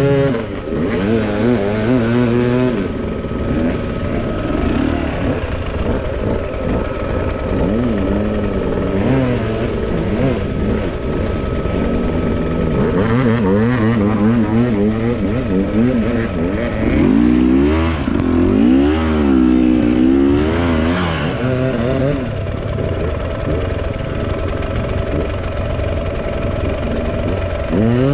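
Enduro dirt bike engine under load off-road, its revs rising and falling repeatedly as the rider works the throttle and gears.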